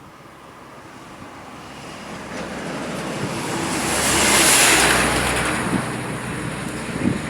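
A road vehicle drives past, growing steadily louder to a peak about four and a half seconds in, then fading away, with tyre and engine noise.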